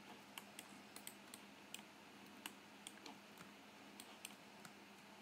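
Faint, irregular clicks of a computer mouse and keyboard, about a dozen scattered through the few seconds.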